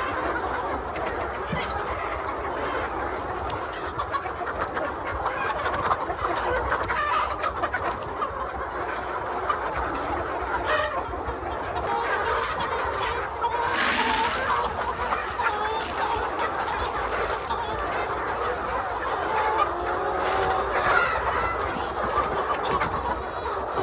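A flock of laying hens clucking, with many overlapping calls running on continuously.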